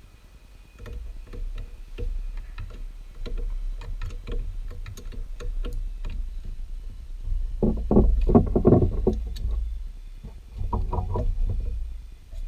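Hand tools working the negative battery terminal to disconnect it: scattered clicks and taps, then two louder bursts of rapid clicking about eight and eleven seconds in, over a low rumble.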